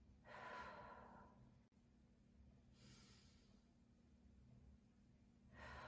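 A woman's slow, deep diaphragmatic breathing, soft and airy: three breaths about two and a half seconds apart.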